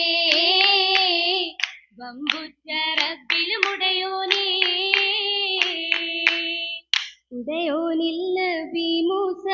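Oppana performance: a girls' chorus singing a Mappila song in unison, punctuated by sharp rhythmic hand claps from the dancers. The singing breaks off briefly a few times, about two seconds in and again near seven seconds, between clapped phrases.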